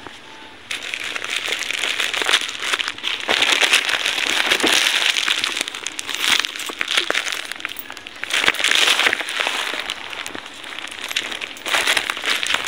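Plastic courier pouch crinkling and rustling as it is handled close to the microphone, irregular and full of small crackles, starting about a second in.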